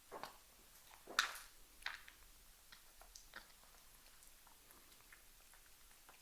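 Cat gagging and gulping while throwing up after eating grass. A few short wet gulps come about a second apart, the loudest about a second in, then only faint clicks.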